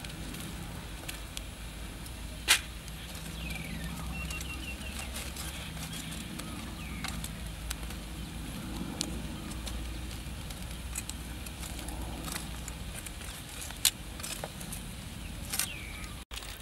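Metal tongs clicking sharply against charcoal embers and stones a couple of times, with faint scattered clicks, over a steady low rumble. A bird chirps faintly a few seconds in.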